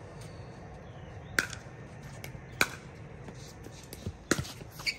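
Pickleball paddles hitting a plastic pickleball in a rally: sharp pops, two about a second apart, then three in quick succession near the end.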